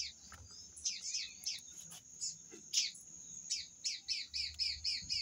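A small bird chirping over and over in short notes that drop in pitch, settling into a steady run of about three chirps a second in the second half.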